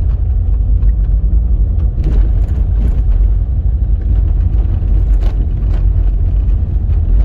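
A car driving, heard from inside the cabin: a steady low rumble of engine and road noise, with a few light clicks or knocks about two, three and five seconds in.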